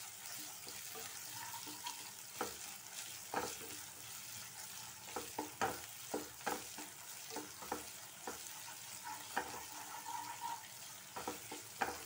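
Crushed garlic and ginger sizzling in hot oil in a non-stick frying pan, with a steady hiss, while a spatula stirs them, scraping and knocking against the pan at irregular moments.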